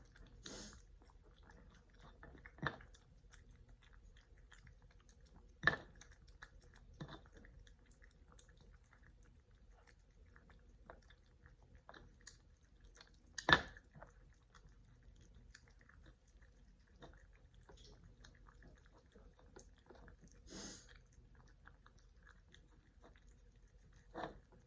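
Cats chewing food close to the microphone: a steady run of small wet clicks and bites, with a few sharper, louder clicks, the loudest about halfway through.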